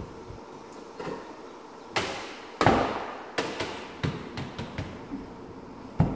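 Cordless drill-driver setting screws into a wooden 2x4 platform frame in short bursts, with sharp knocks of tool and wood; the loudest burst comes about two and a half seconds in and another sharp knock near the end.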